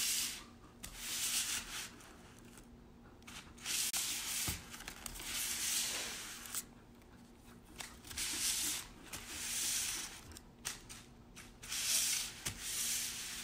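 Paper cheeseburger wrapper crinkling and rustling in repeated bursts of a second or two as a cat paws at it and drags it across the table.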